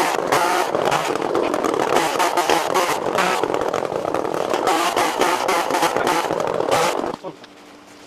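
Chainsaw cutting wood at full throttle, bucking sawmill offcuts into firewood lengths. About seven seconds in it drops suddenly to a much quieter steady hum.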